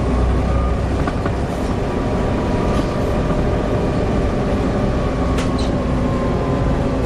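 Volvo B7TL double-decker bus running: a steady engine drone with thin, steady whining tones over it, the strange whining engine noise of this bus. A sharp click about five seconds in.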